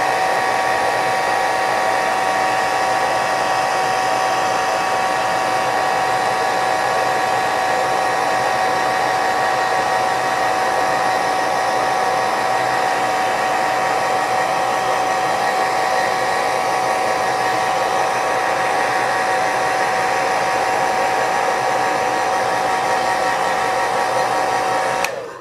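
Handheld hair dryer running steadily, blowing on wet paint to dry it: a rush of air with a steady motor whine, cutting off near the end.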